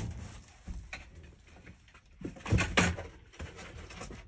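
Wire cat live-trap and carrier rattling and knocking as a cat is handled and moved between them, with two louder metallic clanks close together about two and a half seconds in.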